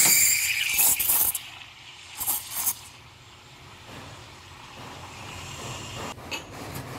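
Espresso machine steam wands frothing milk in two stainless steel pitchers: a loud hiss of steam for about a second and a half, two more short hisses a little after two seconds in, then a quieter steady hiss.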